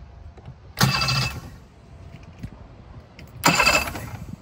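Electric starter of a 2014 Mercury 60 hp four-stroke outboard cranking the engine in two short bursts, each about half a second long and a little over two seconds apart. With the kill-switch lanyard pulled, the engine turns over without firing: it is cranked only to circulate oil before the level is checked.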